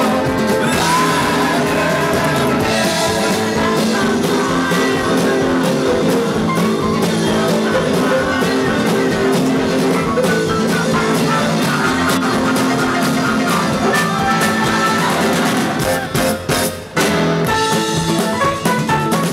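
Live rock band playing a song with a singer, guitar and drums; the music drops away briefly near the end, then goes on.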